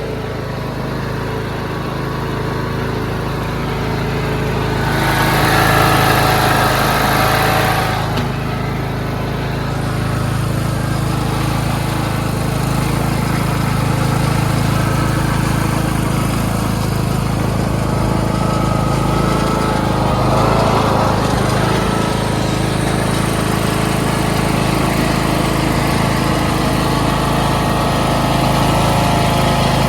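Craftsman LT2500 hydrostatic lawn tractor's small engine running steadily. A rush of hissing noise comes in about five seconds in and lasts about three seconds.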